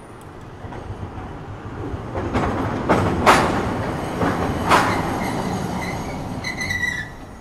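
Onboard sound of a Nagasaki Electric Tramway Series 202 streetcar, a 1950 Nippon Sharyo car. The car's running noise builds about two seconds in, with two sharp clanks about a second and a half apart and a brief high-pitched squeal near the end.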